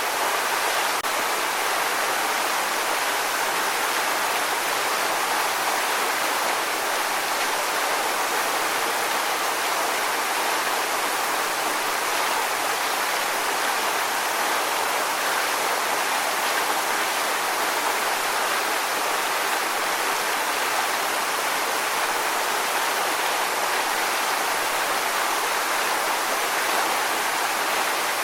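Waterfall: water falling and splashing in a steady, even rush with little deep rumble.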